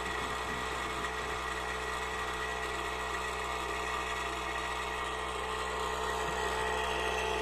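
Coin-counting machine's motor and sorting mechanism running steadily in its counting cycle, a continuous whir with steady tones and no separate clicks. The total on its display holds at the same amount, so it is running with no coins left to count.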